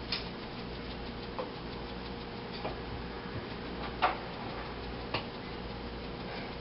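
Scattered light clicks and taps from handling and sprinkling a cumin spice container, about five in all, the sharpest about four seconds in, over a steady low kitchen hum.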